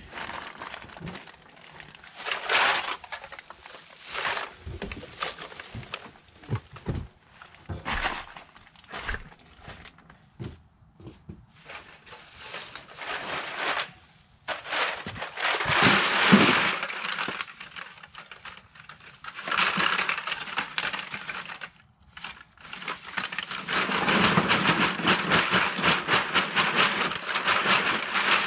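Plastic trash bags full of empty aluminum cans being handled: rustling plastic and crinkling, clinking cans in separate bursts with short pauses. About three-quarters of the way through, this turns into a steady, dense rattle of cans shifting in a bag set into a plastic bucket.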